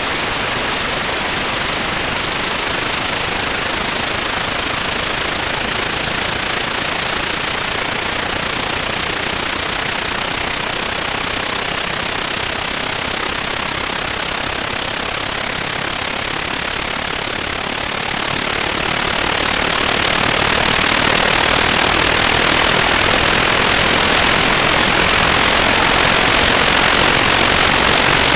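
Propeller aircraft engines starting up and running with a steady rushing drone. The drone gets louder about two-thirds of the way through as the propellers come up to speed.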